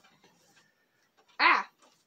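Near silence, then about one and a half seconds in a single short, loud vocal cry from a person, its pitch rising and then falling.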